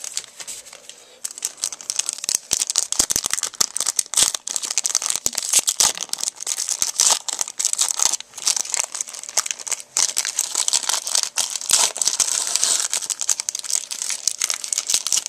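Foil Yu-Gi-Oh booster pack wrappers being crinkled and torn open, a dense, irregular run of crackles and rips.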